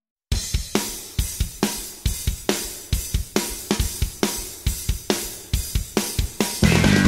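Rock music: a drum-kit intro of steady kick, snare and cymbal hits starts after a brief silence, and the full band with distorted electric guitar comes in near the end.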